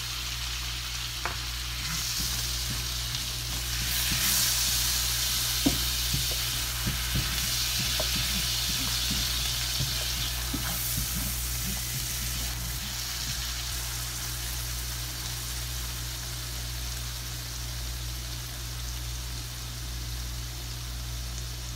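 Tomato sauce sizzling in a hot frying pan while it is stirred with a silicone spoon, with a few light taps and scrapes of the spoon on the pan in the first half. The sizzle is louder in the first half and eases toward the end, over a steady low hum.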